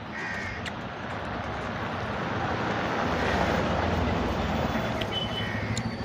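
A car driving past close by, its engine and tyre noise swelling to a peak about three to four seconds in and then fading.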